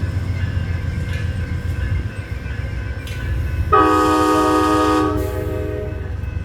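Amtrak passenger train's locomotive air horn sounding one blast of about a second and a half, a chord of several tones, a little past the middle, over the steady low rumble of the train. A fading horn chord trails off at the start.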